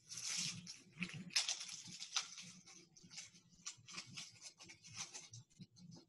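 Food packaging rustling and crinkling in irregular bursts as it is handled, dying away near the end.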